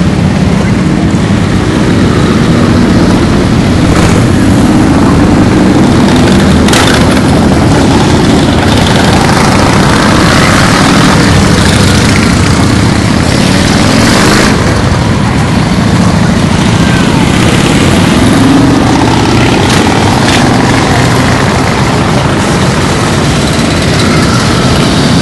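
A stream of motorcycles riding past close by, their engines running loud and overlapping, each one's pitch rising and falling as it passes.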